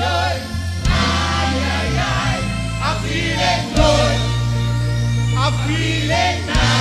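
Live stage band music with a heavy, steady bass line that changes note every second or two, and a group of voices singing over it.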